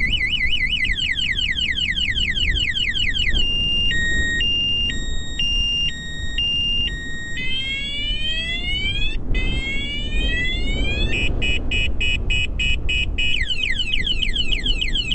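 Motorcycle alarm siren sounding and cycling through its tones: a fast warble, quick repeated falling sweeps, a high-low two-tone, rising whoops, rapid beeping, then falling sweeps again.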